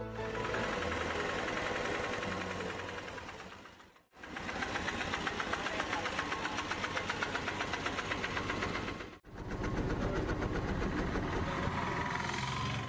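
Auto-rickshaw engine running with a fast, even puttering beat, heard in three spliced stretches that each dip out briefly, about four and nine seconds in.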